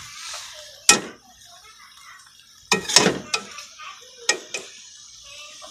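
Metal spoon knocking and scraping against a metal cooking pan while stirring: a sharp clink about a second in, a cluster of knocks around three seconds, and two more near the end.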